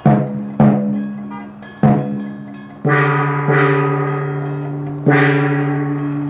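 A large gong struck six times at uneven intervals, each stroke ringing on and slowly fading; the last three strokes sound lower than the first three.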